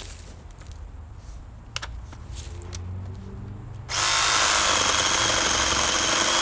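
Battery-powered Denzel reciprocating saw starting up about four seconds in and running steadily at full speed as it cuts through a tree branch, a loud, even buzz.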